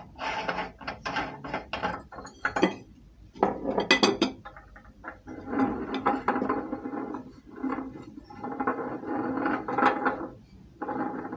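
Meat grinder working noodles through, with metallic clinking and grinding in uneven bursts.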